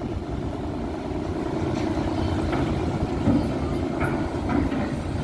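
Steady low rumble of ferry engines in the harbour, with a few faint brief higher sounds over it.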